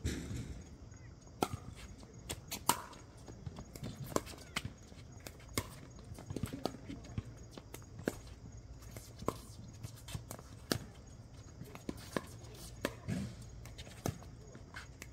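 Pickleball rally: paddles striking a plastic pickleball back and forth, sharp pocks about once a second.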